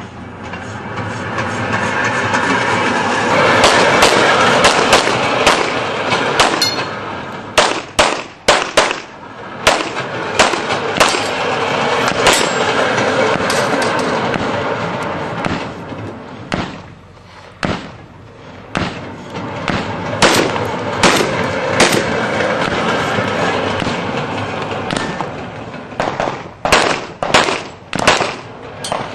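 Strings of gunshots fired by a shooter seated in a rolling rail cart: a rapid run of about a dozen shots in the first half, scattered pairs in the middle, and another quick string near the end. Under the shots is a steady rushing noise that swells over the first few seconds.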